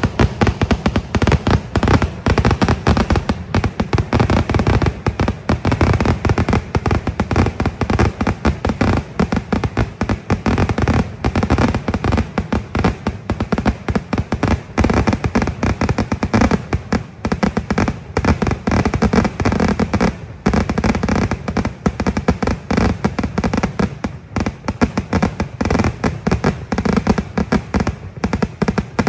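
Festival fireworks display: a continuous rapid barrage of loud firecracker bangs, many per second, with a brief lull about two-thirds of the way through.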